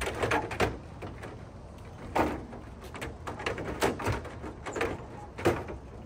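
Hard plastic grille parts being handled: a string of irregular knocks and clicks, the loudest about two seconds in, about four seconds in and near the end.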